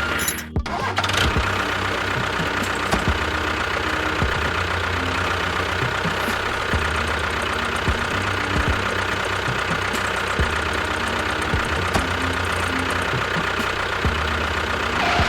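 An engine running steadily, with a brief break about half a second in.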